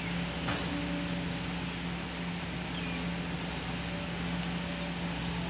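Excavator's diesel engine running at a steady pitch, with a single faint clank about half a second in.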